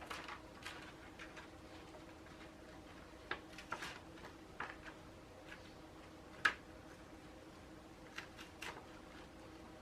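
Faint scattered ticks and crinkles of an adhesive sheet being handled and pressed onto a PC tower case, with one sharper click about six and a half seconds in, over a faint steady hum.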